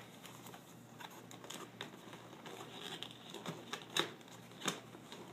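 Hands handling a small cardboard box and opening its flap: soft scuffing and rustling of card with scattered sharp clicks, the two loudest about four seconds in and under a second apart.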